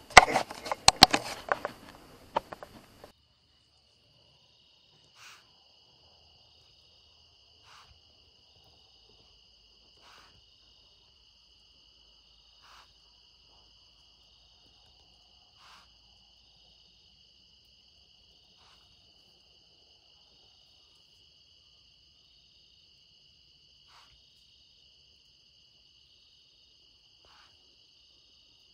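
Crickets chirring steadily at two high pitches, with a faint click every two to three seconds. For the first three seconds, close rustling with sharp knocks drowns them out.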